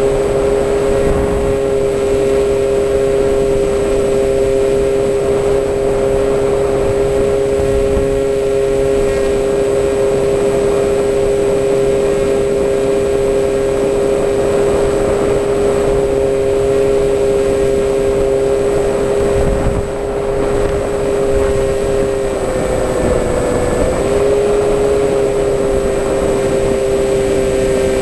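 Electric motor and propeller of an FPV model aircraft, heard from the onboard camera: a steady whine in two pitches that dips briefly and recovers a little over 20 seconds in, over the rumble of wind on the microphone.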